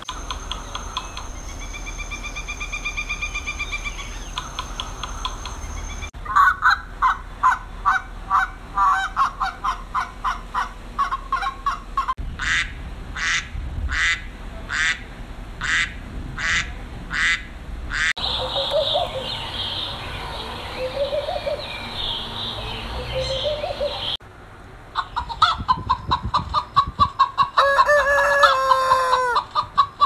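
A run of different bird calls that changes abruptly about every six seconds. A mallard hen quacks in an even series about twice a second in the middle, then chickens cluck and a rooster crows near the end.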